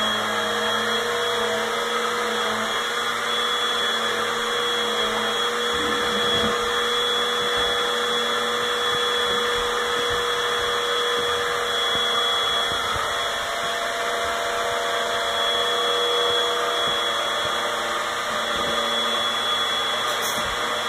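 Upright vacuum cleaner running steadily: a constant motor hum with a thin high whine over it.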